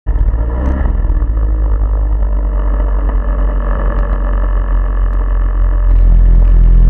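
Snowmobile engine running, with an uneven, rough note that turns louder and steadier about six seconds in.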